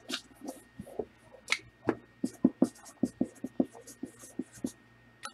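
Irregular light taps and clicks, about two to three a second, from hands handling small things; they stop shortly before the end.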